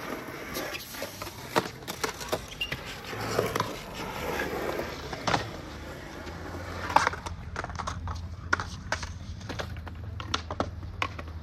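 Skateboard wheels rolling on concrete, with scattered sharp clacks and knocks of boards on the ground, the loudest about seven seconds in.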